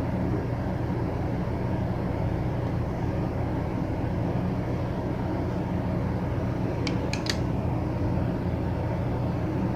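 Steady low background hum, with two or three faint clicks about seven seconds in.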